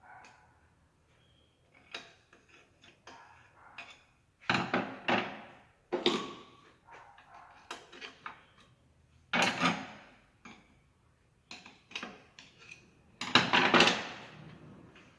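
Metal gearbox parts and hand tools clinking and knocking as they are handled during reassembly: scattered light clicks with a few louder clattering knocks.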